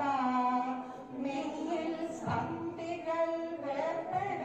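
A female voice singing a melody in long held notes that slide from one pitch to the next.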